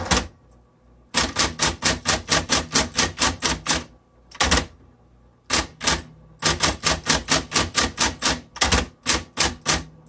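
Smith Corona Coronet Super 12 electric typewriter being typed on, keys striking in quick runs of about four a second with two short pauses, over the steady hum of its running motor.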